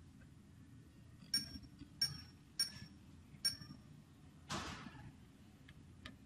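Four sharp clicks, each with a brief high ring, from the controls of a Hameg HM6042 curve tracer being operated by hand, followed by a short rustling swish.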